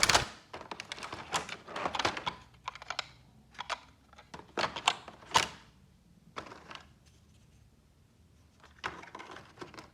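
Plastic toy train parts and their packaging being handled: a run of light clicks, taps and rustles, thickest in the first half and again briefly near the end.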